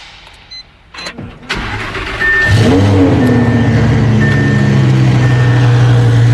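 An Audi's engine starting: a few clicks, then it catches with a quick rev flare and settles into a loud, steady idle. A short high dash chime beeps about once a second over the idle.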